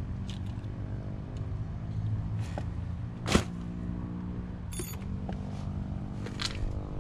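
A steady low mechanical hum with a pitched drone, overlaid by a few light clicks of small metal parts being handled and one sharp knock about three and a half seconds in, the loudest sound.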